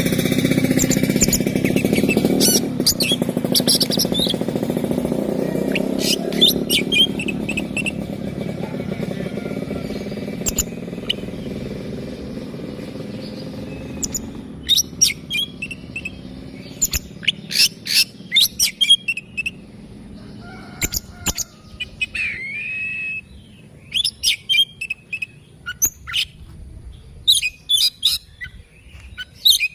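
Oriental magpie-robin singing: phrases of short, sharp, rapidly repeated whistled notes with an occasional slurred glide. A low engine rumble fades away over the first half.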